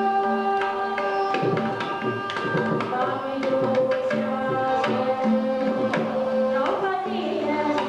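Carnatic vocal music: a woman singing long held, gliding notes of the song in raga Kalyanavasantha, with a violin following her melody and drum strokes keeping the five-beat khanda chapu tala.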